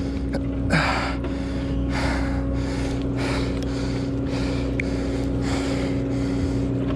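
A person breathing hard and rhythmically, about one breath a second, while straining against a hooked fish, over the steady drone of the boat's engine.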